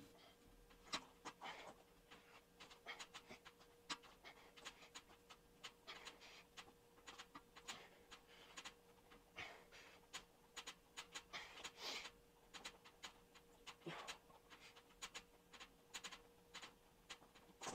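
Faint, quick, irregular panting breaths of a man exerting himself through a set of knee-up ab exercises, over a faint steady hum.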